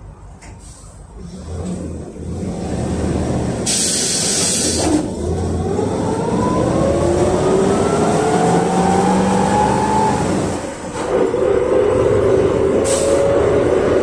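PAZ-32054 bus's ZMZ-5234 V8 engine, running on LPG, heard from inside the cabin as the bus pulls away: a long hiss of released compressed air about four seconds in, then the engine note climbing steadily as it accelerates. Near eleven seconds the engine note drops briefly at a gear change, then climbs again, with another short air hiss near the end.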